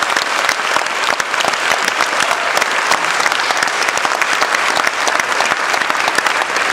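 Congregation applauding, a dense, steady clapping that holds at one level throughout.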